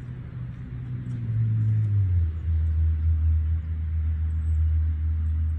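A motor vehicle's engine running, a low steady hum that drops in pitch about two seconds in and then holds.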